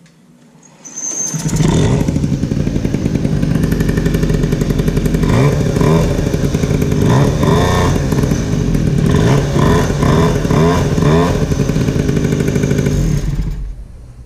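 Peugeot 103 moped's two-stroke engine firing up about a second in and running loud, revved in a series of short throttle blips in the middle. It drops away near the end. This is the first run after the variator and clutch were reassembled.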